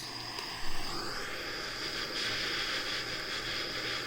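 Soldering torch flame hissing steadily after being lit, with a rising whistle in the hiss about a second in.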